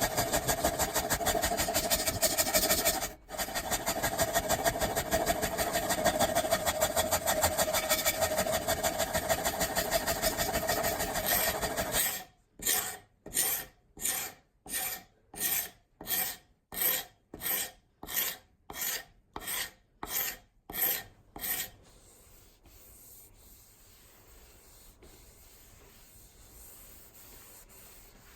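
Hand abrasion on the axe: fast, continuous back-and-forth scraping strokes with one brief break early on. About halfway through they slow to separate single strokes, roughly one a second, and they stop about three-quarters of the way through, leaving only faint room noise.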